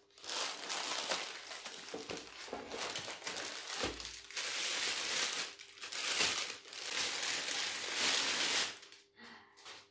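A clear plastic bag crinkling and rustling as it is shaken and handled, with a dull knock about four seconds in. The rustling stops shortly before the end.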